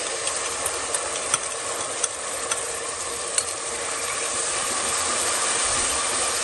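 BBQ sauce mixture sizzling steadily in hot oil and fried garlic in an aluminium pot while it is stirred with a wooden spatula. A few light clicks come from the spatula knocking the pot.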